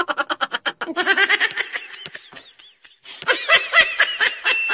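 High-pitched snickering laughter in a rapid string of short pulses. It fades out about two seconds in and starts again a second later.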